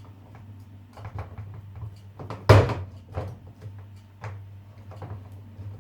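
Small metallic clicks and knocks from a Swiss Army knife's can opener being worked on a pierced tin of beans, with one loud knock about two and a half seconds in. A steady low hum runs underneath.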